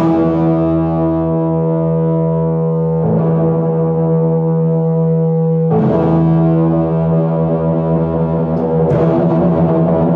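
Experimental electronic drone music: a loud, sustained, horn-like drone on one low pitch with many overtones. Its texture shifts about three seconds in, again near six seconds, and turns rougher about nine seconds in.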